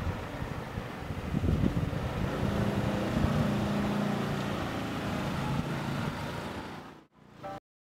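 Small motor scooter engine running as it rides up the street and passes close by, growing louder and then fading away; the sound cuts off abruptly near the end.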